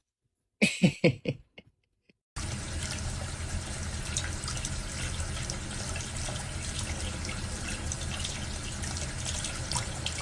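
A few short voice-like sounds about a second in, then from about two seconds in a steady rush like water running from a tap.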